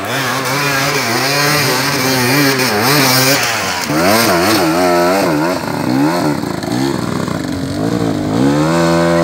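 Enduro dirt bike engine revving hard, its pitch rising and falling over and over as the throttle is worked to drive up a steep dirt climb, then held at a high steady rev near the end.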